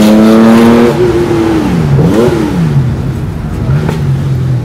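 Carbureted air-cooled Porsche 911 flat-six on Weber 46 IDA carburettors through a merge-collector competition exhaust, heard from inside the cabin. It revs up hard in second gear, then about a second in the throttle closes and the revs fall, with one quick throttle blip before it settles to a lower steady note.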